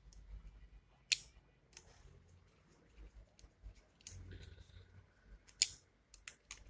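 Scattered sharp metal clicks and ticks from a small screwdriver working the screws on the top plate of a Cat C9 diesel injector during disassembly, with two louder clicks about a second in and again late on.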